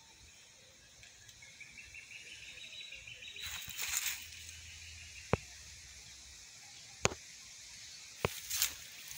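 Quiet outdoor ambience among plants: a faint high tone that rises slightly in the first few seconds, rustling about four seconds in and again near the end, and three sharp clicks in the second half.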